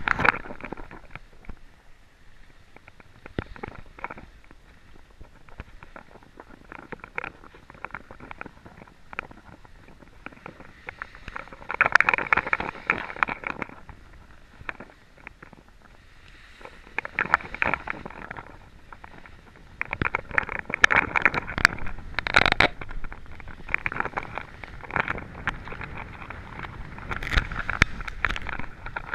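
Skis sliding and scraping over packed snow during a downhill run, coming in louder rough surges every few seconds, with wind rushing past.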